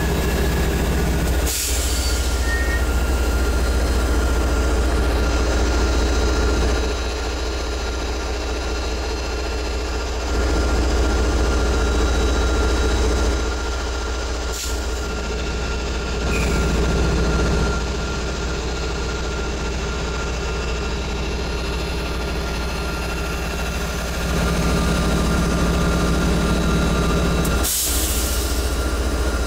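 MBTA commuter rail train: a diesel locomotive running and bi-level coaches rolling past, a steady heavy low rumble with a thin high whine above it that swells and eases. Three sharp clicks break it, about thirteen seconds apart.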